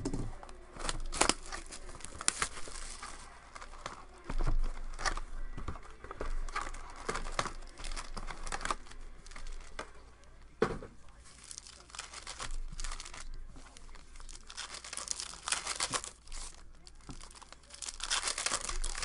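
2014 Panini Prizm Baseball foil card packs crinkling and rustling as they are handled and pulled from the box, with a pack wrapper torn open near the end.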